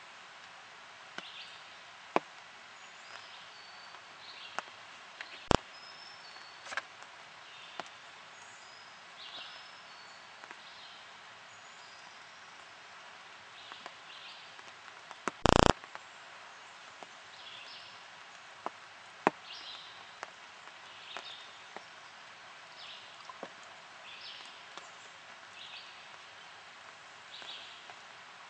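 Woodland ambience: short high bird chirps repeating every second or two over a steady hiss, with a few sharp ticks and one loud, brief thump about fifteen seconds in.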